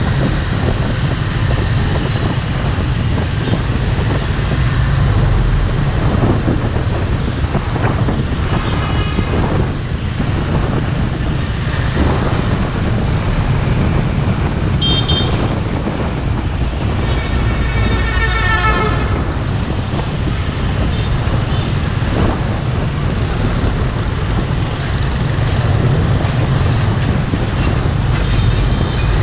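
Steady road-traffic noise heard from a moving motorbike among other motorbikes and trucks: a constant low rumble of engines, tyres and wind. Vehicle horns sound a few times, the longest lasting about two seconds a little past halfway.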